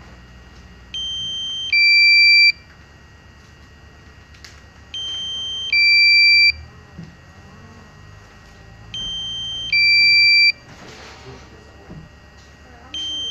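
Electronic beeper sounding a repeating two-tone alarm: a quieter high tone followed at once by a louder, lower tone, the pair lasting about a second and a half and coming back about every four seconds, three times over, with a fourth pair starting at the very end.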